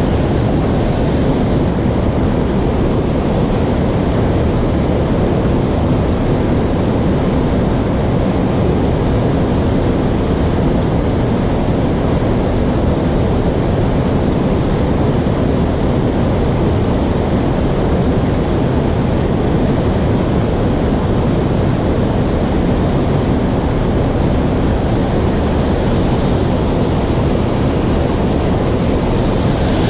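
Steady, unbroken rushing of water pouring through a river dam, an even noise with no distinct events.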